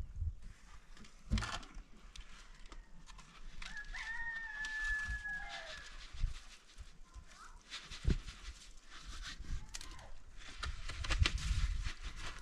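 A rooster crows once, a held call of about two seconds that drops in pitch at the end. Scattered knocks and scrapes of work on the block wall sound around it.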